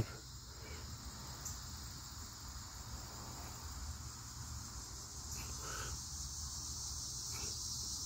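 Faint steady chorus of insects, an even high-pitched sound that keeps up throughout.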